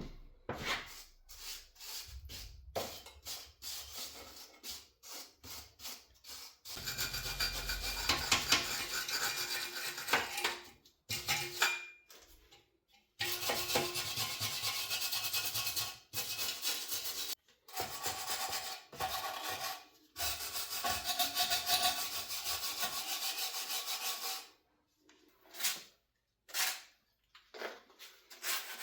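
Rasping, scrubbing strokes on the metal of a car's rear subframe as it is cleaned. The first few seconds are quick scratchy strokes. After that the scrubbing comes in spells of a few seconds, with short pauses between them.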